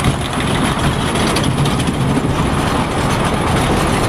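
Roller coaster train being hauled up the lift hill by its chain lift: a steady mechanical rattle and rumble of the chain and track.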